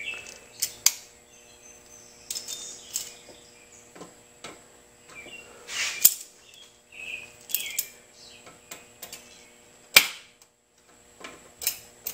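Sparse metallic clicks and taps of needle-nose pliers on a lawn mower engine's governor adjustment pin and linkage, the sharpest about six and ten seconds in.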